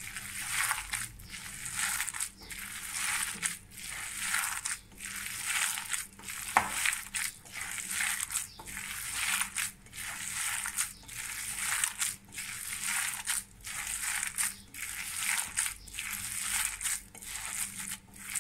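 Raw chicken mince with chopped onion and herbs being squished and kneaded by hand in a glass bowl, a wet squelching in a steady rhythm of strokes, about three every two seconds. A single sharp click about six and a half seconds in.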